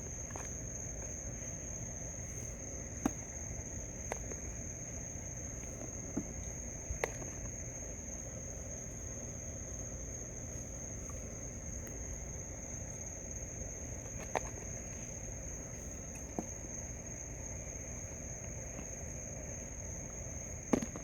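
A chorus of night insects keeps up a steady, high-pitched drone, with a few sharp clicks scattered through it.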